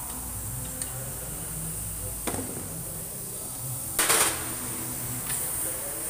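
A hose-fed pneumatic air tool gives one short hissing burst, about a third of a second long, about four seconds in. A sharp metallic click comes about two seconds in. A much briefer, fainter hiss follows about a second after the burst.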